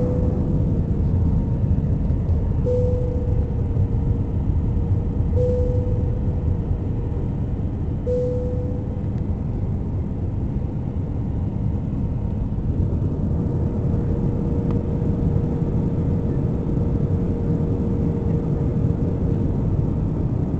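Airliner cabin noise on approach: a steady low rumble of engines and airflow. A faint mid-pitched whine starts up sharply about every three seconds, then holds steadily through the second half.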